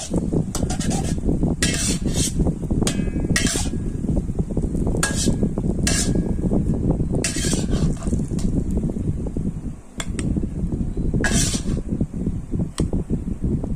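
Metal spatula scraping and clinking against a black steel wok as a Thai omelet fries in hot oil: about a dozen irregular scrapes with a brief metallic ring, over a steady low rumble.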